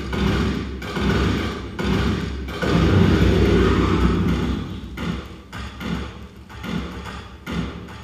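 Live electronic percussion from a Kyma system: thudding, rhythmic beats built from processed elevator field recordings. It swells into a dense, loud passage about three seconds in, then thins to softer pulses about two a second.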